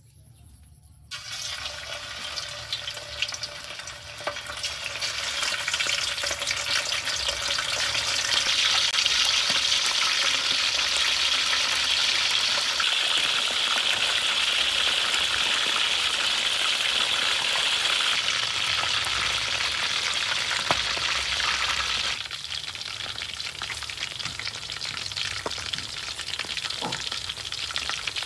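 Chicken wings deep-frying in a wok of hot oil, sizzling and bubbling. The sizzle starts suddenly about a second in and builds over the next several seconds. It eases off noticeably about two-thirds of the way through.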